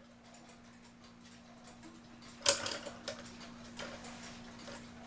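August Schwer cuckoo clock movement ticking unevenly, a few clicks at irregular spacing with one sharper click about halfway through, over a faint steady hum. The double-pendulum clock is running poorly after its pendulum wire was bent.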